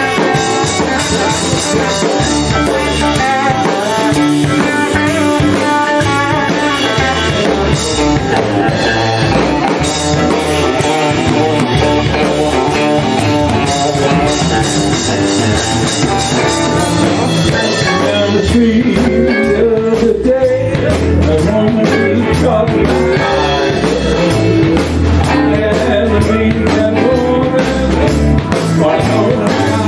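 Blues band playing live: electric guitar and harmonica over a steady rhythm, with percussive beats more prominent in the second half.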